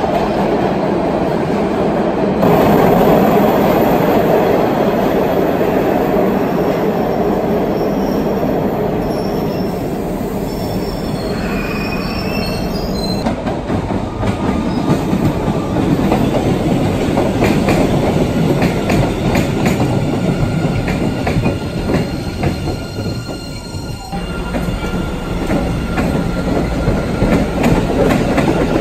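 MBTA subway trains running through underground stations. First an Orange Line train rumbles away from the platform, its wheels squealing on the rails for a few seconds near the middle. Then a Blue Line train comes in, its wheels clicking rhythmically over the rail joints, growing louder as it draws alongside near the end.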